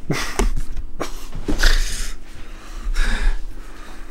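A person making a series of short, breathy huffs and snorts, about five in a row.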